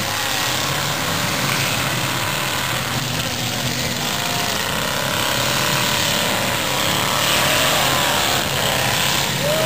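Many demolition derby car engines running and revving together as the cars drive about the arena: a loud, steady din of engines.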